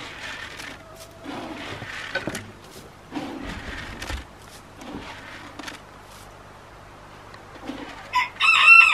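Chickens clucking quietly, then one loud, drawn-out chicken call about eight seconds in.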